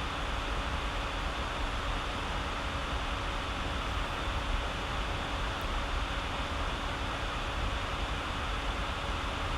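Steady background hiss with a faint steady hum, even throughout, like a fan or air-conditioning unit running.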